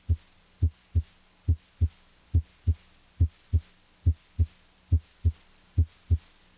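Heart sounds through a stethoscope's diaphragm at the apex (mitral area), where S1 is usually louder than S2. A steady lub-dub: S1 and S2 come in close pairs with a longer pause between beats, about 70 beats a minute.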